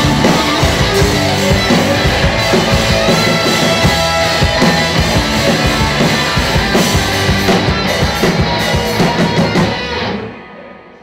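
Live rock band playing loud: electric guitars and a drum kit together. The song ends about ten seconds in, where the sound drops away sharply.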